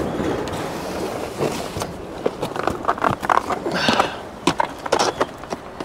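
A steady rushing noise, then from about a second and a half in a quick, irregular run of knocks, clicks and scrapes, like hands and gear working against hard rock.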